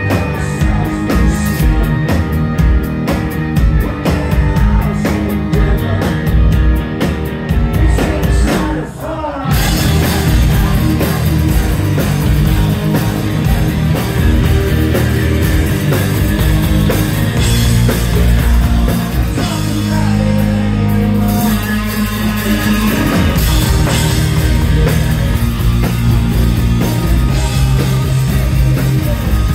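Live rock band playing loud: electric guitars and a drum kit, with sung vocals. About nine seconds in a brief slide in pitch leads into a fuller, denser section of the song.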